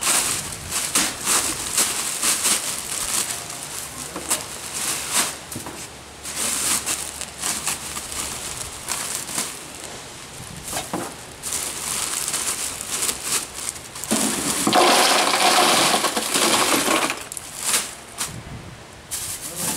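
Plastic bag of ice cubes crinkling and crunching as it is handled, with the cubes clinking and grinding inside. A louder, denser stretch of rustling and crunching lasts about two and a half seconds, three-quarters of the way through.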